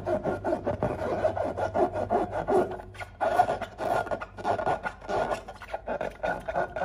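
Hands rubbing and squeezing a taut latex balloon: a rapid, uneven run of squeaky rubbing strokes, several a second.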